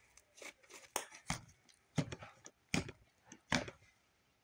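Slime being squished and stretched in the hands, giving a series of short, sharp pops and slaps, about six, under a second apart.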